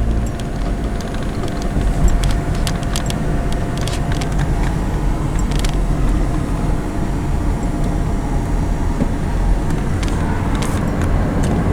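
Car interior noise while driving: steady engine and road rumble, with scattered small clicks and rattles.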